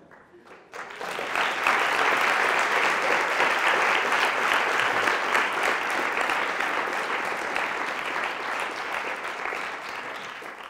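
An audience applauding. It builds up about a second in, holds steady, then slowly dies away near the end.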